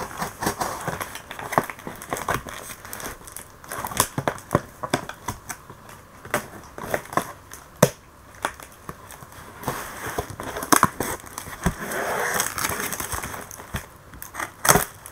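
A shipping parcel being cut open with a box cutter: plastic packaging crinkling and tearing, with irregular sharp clicks and taps of the blade and handling.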